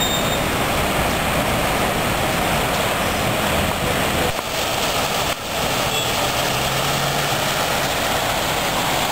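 Steady city-street noise: road traffic mixed with the rush of a fountain's water spilling over low weirs.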